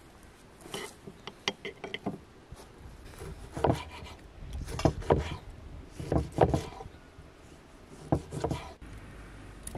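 Kitchen knife slicing tomatoes on a thick wooden cutting board, the blade knocking on the wood at the end of each cut. Light clicks come first, then several heavier knocks, some in quick pairs.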